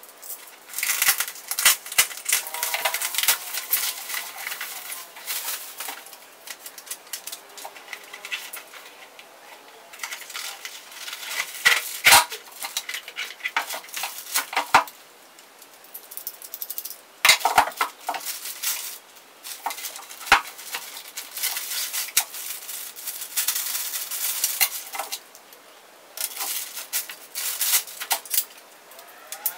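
Unboxing handling sounds: bubble wrap and plastic packaging crinkling and tearing in irregular bursts, mixed with sharp clicks and knocks as the tripod and its parts are set down and handled.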